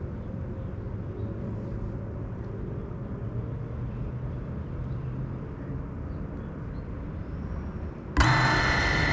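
Steady low outdoor background rumble with no distinct events. About eight seconds in, a much louder steady hum with several pitches cuts in abruptly.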